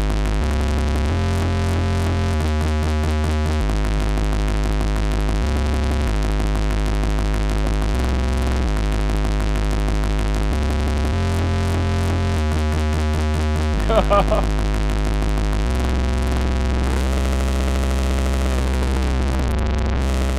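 Moog Werkstatt-01 analog synthesizer playing a dub bass line: deep bass notes that step between a few pitches every second or so under a repeating pattern. A brief high squelch cuts in about 14 seconds in, and the pitches glide near the end.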